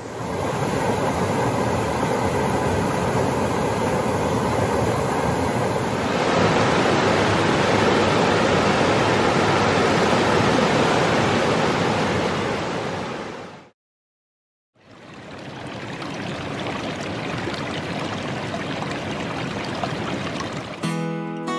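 Split Rock River rushing over rapids, a steady noise of running water. The sound changes about six seconds in, fades out to a second of silence a little after the middle, then comes back. Acoustic guitar starts at the very end.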